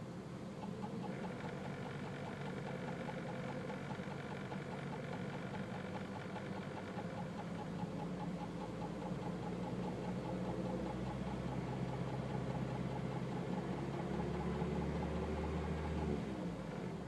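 Toyota EP91 Starlet Glanza V's turbocharged 1.3-litre four-cylinder engine held above idle, with a fast, even knocking running through it; the engine speed creeps up and then falls back near the end. The knock appeared after an exposed pod air filter was fitted and comes in from about 1500 rpm, not at idle.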